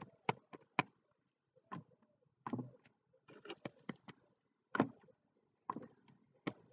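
The edge of a folded piece of cardboard being chopped against a painting board to print grass blades: a series of short sharp taps at irregular intervals, about one a second, with a quick cluster of them around the middle.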